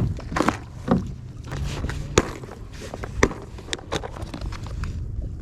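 Kayak out on the water, with several sharp knocks against the hull over a steady low wind rumble on the microphone.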